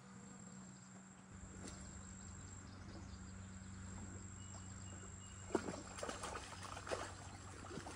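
A distant motor hums low and steady, slowly growing a little louder. A thin high steady whine sits above it, and a few sharp clicks and taps come in the last few seconds as a spinning rod is handled and cast.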